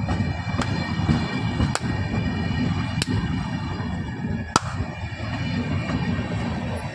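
Indian Railways passenger coaches rolling past close by: a steady rumble of steel wheels on rail, broken by a handful of sharp, irregular clacks as the wheels cross rail joints, with a thin steady high whine over it.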